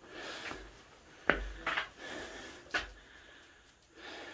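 Two sharp knocks about a second and a half apart, with short rustling noises and a low rumble around them.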